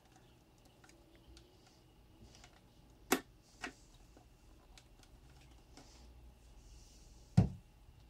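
Handling noise from a switched-off Sinbo SVC-3460 handheld car vacuum: two sharp plastic clicks about three seconds in, then a louder, deeper knock near the end as it is set down on the desk.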